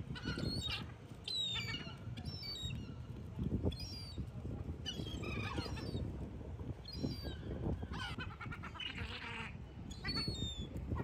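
A flock of gulls calling, many short falling cries one after another, over a steady low rumble.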